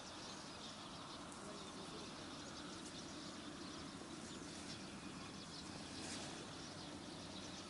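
Faint, steady background hiss with no distinct event.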